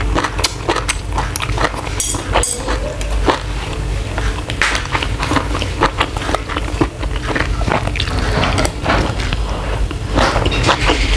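Close-miked chewing of shrimp and rice, with many small wet mouth clicks and crackles at an irregular pace, and cutlery scraping the food on the plate now and then.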